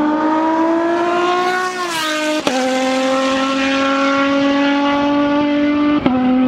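Race car engine running hard, its note climbing slowly. There are two sharp cracks, about two and a half and six seconds in, the note dropping at the first as the car changes gear.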